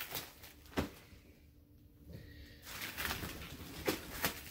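Plastic wrap rustling and crinkling with a few light knocks as wrapped wooden art panels are handled in a cardboard box, a sharp knock just under a second in and a quiet pause in the middle.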